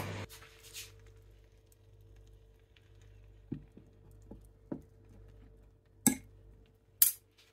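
A wire dish-gripper tongs clicking and clinking against a glass baking dish as it is handled: a few light clicks in the middle, then two sharper clinks about six and seven seconds in.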